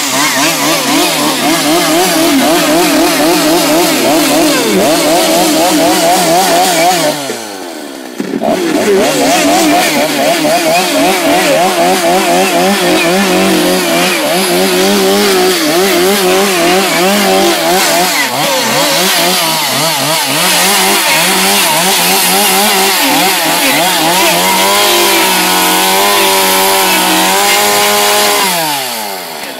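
John Deere two-stroke chainsaw plunge-cutting a round hole in plywood, the engine revving with a wavering pitch as it works under load. About seven seconds in it drops briefly toward idle, then revs up again. Near the end it holds a steady high rev before winding down.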